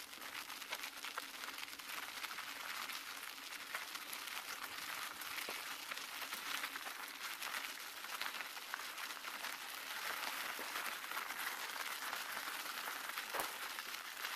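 Steady gritty crunching and crackle of movement over a rough sand-and-brick path, with a faint steady hum underneath.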